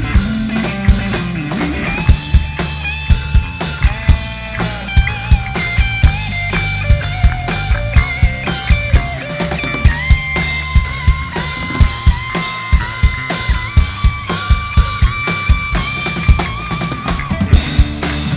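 Instrumental rock music played by a live band: a steady drum-kit beat with bass drum and snare, over bass and sustained guitar or keyboard lines.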